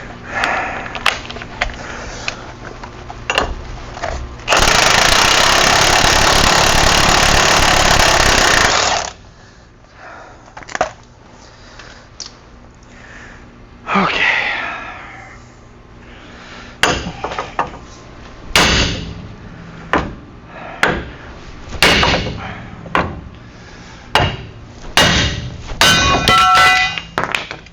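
A power tool runs loud and steady for about four seconds, then a string of separate sharp metal knocks and clanks, some ringing near the end: tool work and hammer blows loosening a Ram 1500 front wheel hub assembly.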